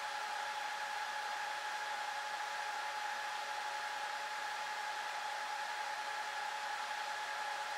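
Dell PowerEdge 2650 server's cooling fans running at speed while the machine boots: an even rush of air with a steady whine.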